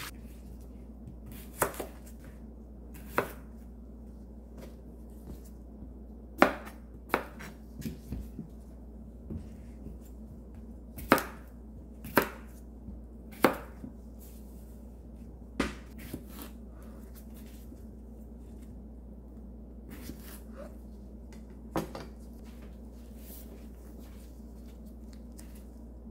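Kitchen knife cutting whole cucumbers into chunks on a plastic cutting board: about a dozen single sharp chops at irregular intervals, some in quick pairs, ending a few seconds before the close.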